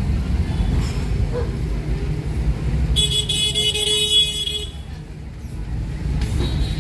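Low steady rumble of a car's engine and road noise heard from inside the cabin, with a vehicle horn sounding once, a steady blast of a little under two seconds, about three seconds in.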